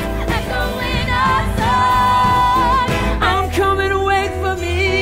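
Musical theatre singing over instrumental accompaniment. A singer holds a long high note with vibrato, then a lower held line follows from about three seconds in.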